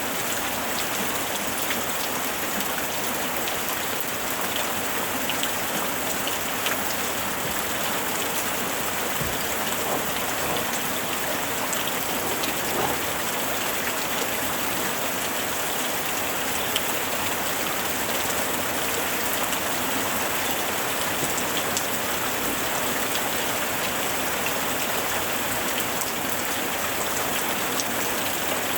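Steady rain falling, a continuous even hiss with many small drop ticks scattered through it.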